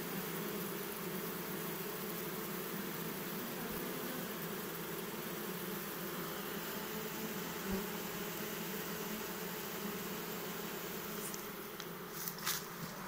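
Queenless honeybee colony humming steadily, the drawn-out hum of a hive that has lost its queen. A few sharp clicks come near the end.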